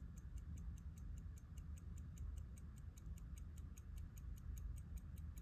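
Keystone Howard Series 5 pocket watch ticking evenly, faint and regular at about five ticks a second: the freshly serviced movement running. A low steady hum lies underneath.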